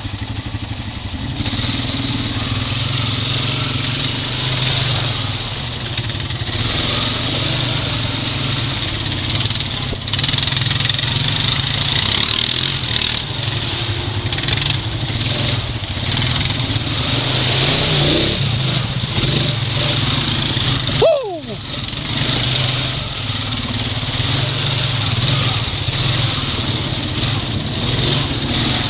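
Honda Rancher 420 ATV's single-cylinder engine running steadily as the quad rides a muddy trail, with a short break and a quick falling tone about three-quarters of the way through.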